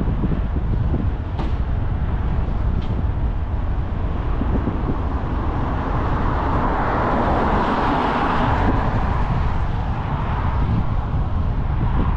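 Wind buffeting the microphone of a camera on a moving bicycle, over a steady road rumble; a louder hiss swells around the middle and fades.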